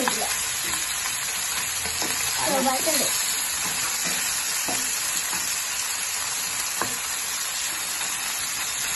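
Small sardines sizzling steadily as they shallow-fry in oil in a nonstick frying pan, with a spatula clicking against the pan a few times as the fish are turned.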